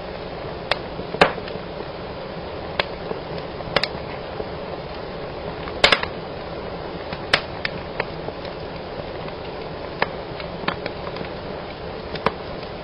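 Fire burning in a fireplace: a steady crackling hiss broken by irregular sharp snaps, the loudest about a second in and near the middle.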